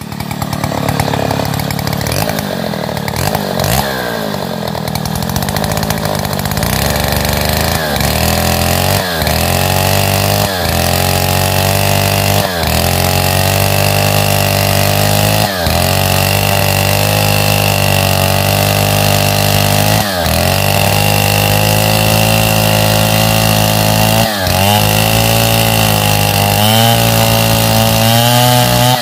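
Stihl 070 two-stroke chainsaw running at high revs while ripping a pine log lengthwise. Its engine note dips sharply now and then and recovers.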